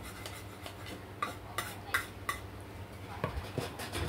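Cutlery clinking and scraping against a dish while eating: a series of light, sharp clicks, about two a second, over a low steady hum.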